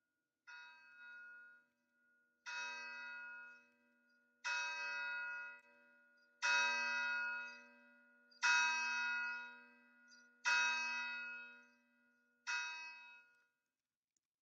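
A single church bell tolling: seven strokes about two seconds apart, each ringing out and dying away. The strokes swell in loudness to the middle and the last one is softer.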